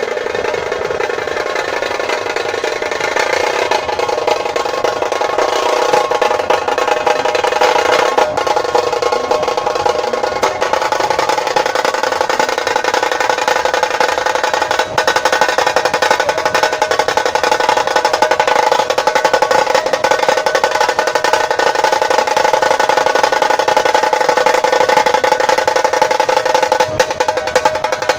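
Nashik dhol drums playing a dense, continuous beat.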